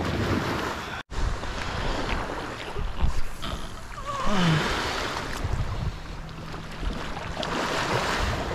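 Wind buffeting the microphone over small waves washing in shallow surf, with gusty low rumble; the sound cuts out for an instant about a second in.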